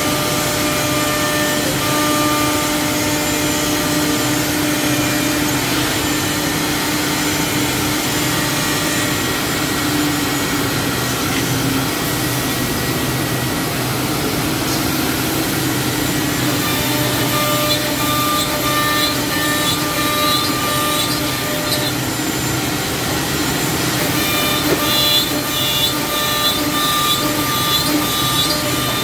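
Ten-spindle CNC mortising machine's router spindles running and cutting into wooden chair-leg blanks: a steady whine over the noise of wood being machined, with a rapid rhythmic chatter in two spells in the second half.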